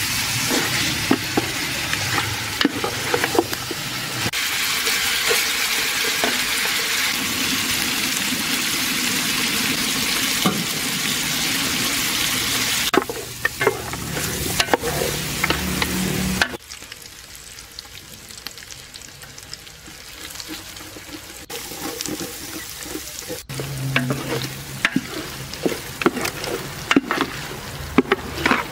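Pieces of lamb frying with a loud, steady sizzle that drops off suddenly a bit past halfway to a quieter sizzle. Near the end, scattered clicks and knocks of a utensil stirring against the pan come in.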